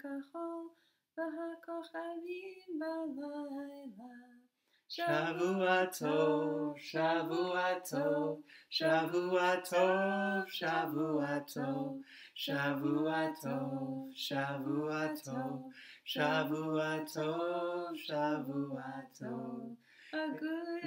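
A woman's singing voice, joined about five seconds in by a man's lower voice; the two then sing a slow melody together in phrases.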